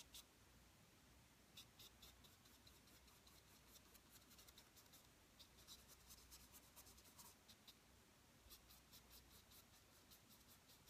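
Faint strokes of a paintbrush on canvas in oil painting: three runs of short, quick strokes, about four or five a second, with pauses between.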